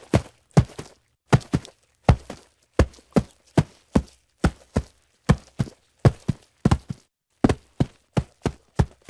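Hooves striking a hard surface at a walk: a steady clip-clop of sharp knocks, about three a second and often in close pairs.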